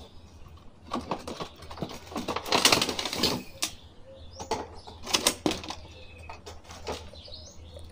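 Clear plastic blister tray of an action-figure package crackling and clicking as it is handled and the figure pulled free, with the densest crinkling about two and a half to three and a half seconds in. Faint bird chirps in the background.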